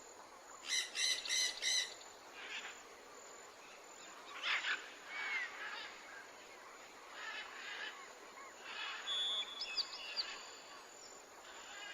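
Bird calls: a quick run of four harsh repeated calls about a second in, then scattered fainter calls and short chirps.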